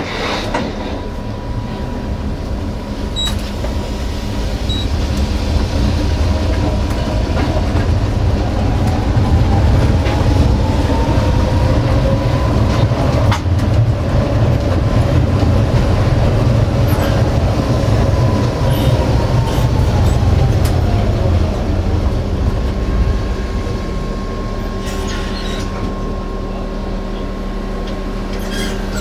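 Tatra T4D tram running on its track, heard from the driver's cab. There is a low rumble of the wheels on the rails and a motor-and-gear whine. The whine rises in pitch, holds, then falls away as the tram slows towards a stop.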